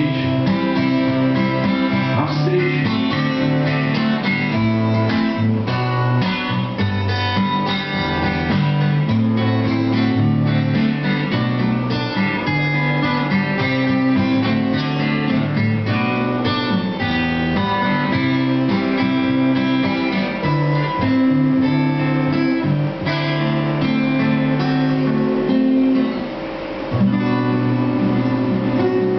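Two acoustic guitars playing an instrumental passage live: steady strummed chords with single picked notes ringing over them, and a brief dip near the end.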